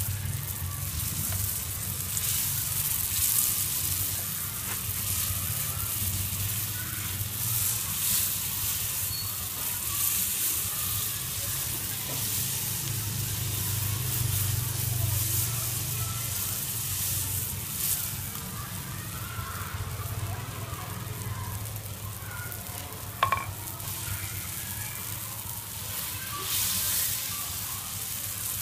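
A dough cake sizzling steadily on a hot griddle over a charcoal fire, with faint crackles as it is turned with chopsticks. A single sharp tap sounds a little past the two-thirds mark.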